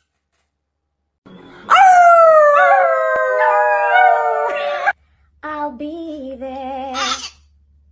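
A dog howling: one long howl of about three seconds that sinks slowly in pitch, starting after about a second of silence.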